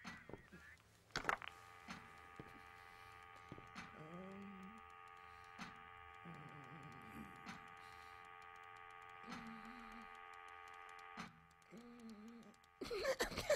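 Steady electric hum of a machine, several held tones together, starting just after a sharp knock about a second in and stopping about two seconds before the end. Short pitched sounds rise and fall over it a few times, and a loud noisy clatter breaks in near the end.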